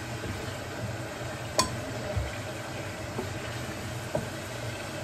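Food sizzling in a frying pan on the hob, a steady hiss over a low hum, with one sharp clink about a second and a half in.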